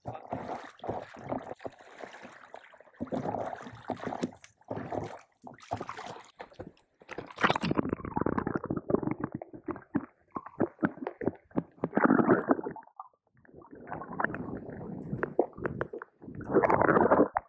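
Lake water sloshing and gurgling around a camera held at and below the surface, muffled and coming in uneven surges.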